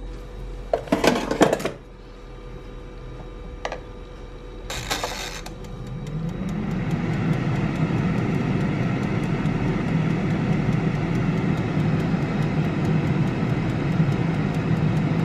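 Pensonic air fryer: a couple of clattery knocks and a click as the basket goes in and the controls are set, then the fan starts about five seconds in, rising to a steady hum, with the mechanical timer ticking faintly and evenly over it.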